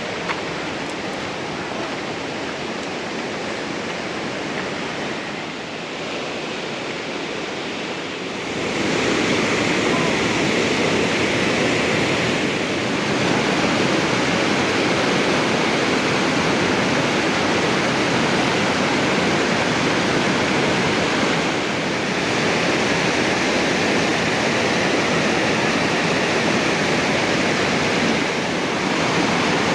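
Heavy rain falling, a steady dense hiss that gets louder about eight seconds in.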